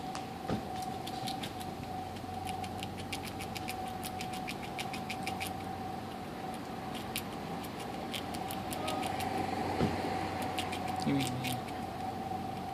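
Fox squirrel gnawing and chewing on a green fruit: quick runs of small crisp clicks, several runs in a row, the longest lasting a few seconds. A steady thin tone hums underneath.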